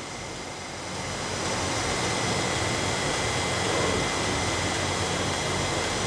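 Steady hum and hiss of milking-parlour machinery, the milking machine and fans running, with a thin steady high whine. The hiss grows louder about a second in and then holds.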